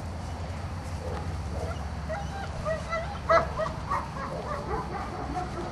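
A dog barking: a run of short barks and yips, the loudest about three seconds in, over a steady low rumble.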